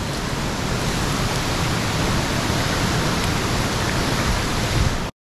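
Steady, dense rush of a waterfall pouring into a pool, cutting off suddenly near the end.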